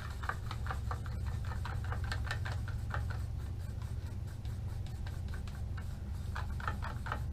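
Paint being stirred in a small cup: quick scraping strokes of the stirrer against the cup, in two spells, over a steady low hum.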